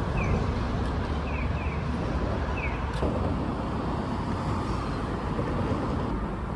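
Steady rumble of road traffic, with a few faint short chirps in the first few seconds.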